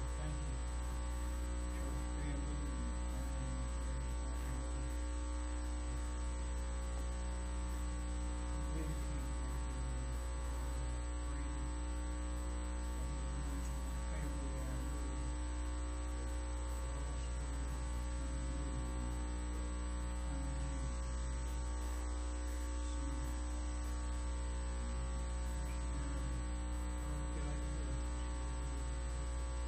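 Steady electrical mains hum with many overtones, unchanging throughout.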